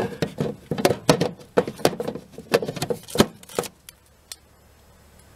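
Hard plastic clicks and knocks as a Bosch 12 V battery pack is handled and pushed into its GAL 1230 CV charger, with one sharp click a little after three seconds as it seats.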